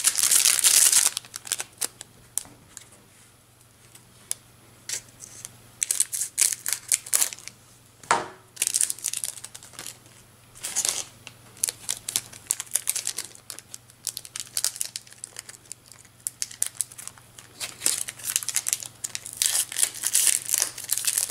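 Foil trading-card booster pack wrapper crinkling in irregular bursts as it is handled in the hands, with bouts of loud crackling at the start and again near the end.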